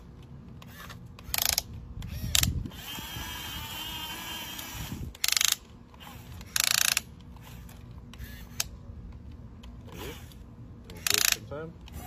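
Remote-control toy excavator's small electric motors whirring as the arm and bucket work, broken by five short, loud bursts of ratcheting clicks.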